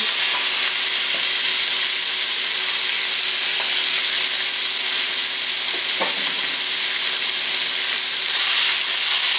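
Skillet sizzling steadily as raw Italian sausage and ground beef begin to fry on a bed of sautéing onions and green bell pepper.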